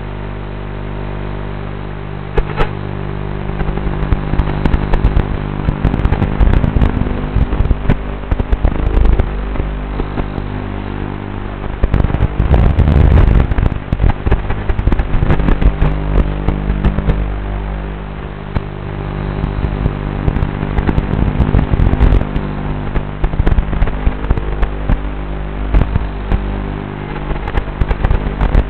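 A tiny whoop micro quadcopter in flight, heard through its onboard analog FPV camera's audio: a steady buzz under a haze of noise, broken by frequent crackles and pops, louder for a stretch about halfway through.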